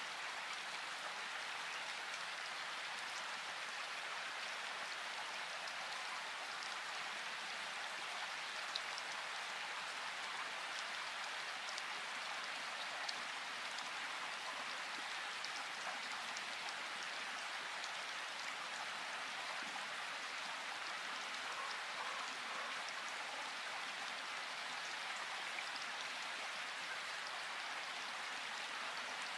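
Steady rain-like hiss with a few faint scattered ticks.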